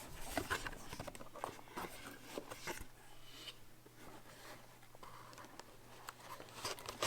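Cardboard product box being opened and its packaging handled: a run of small scrapes and clicks, thinning to faint rustling after about three seconds.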